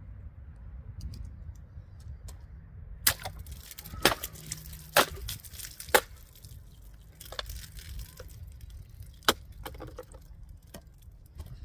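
A Swiss Army knife clone's blade striking wood in a series of sharp knocks. Four loud strikes come about a second apart from about three seconds in, then a few more spaced out. The blade is not cutting through the wood.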